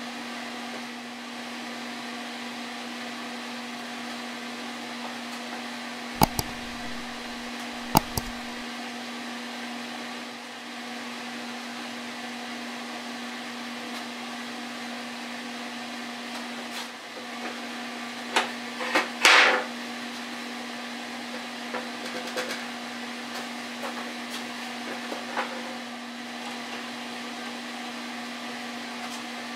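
A steady low hum, with two sharp knocks early on and a short scraping rustle with clicks about two-thirds of the way through, followed by light taps: the handling of a glue bottle, boards and tools during a tabletop glue-up.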